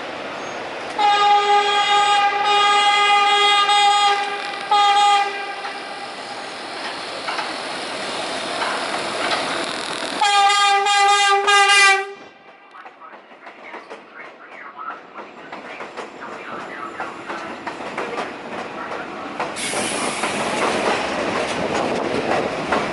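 Subway train horn sounding three times: a long blast, a short one, then another about two seconds long. Between and after the blasts the train runs along the track with rumbling and wheel clatter, building toward the end, and a high hiss joins near the end.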